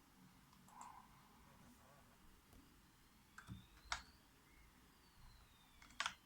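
Mechanical keyboard keys clicking a few times, sparse and separate rather than steady typing. The loudest clicks come about four seconds in and as a quick double click near the end.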